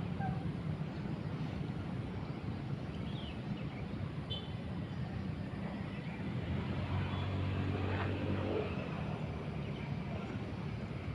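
Steady low outdoor rumble with a motor engine passing, loudest from about six to nine seconds in.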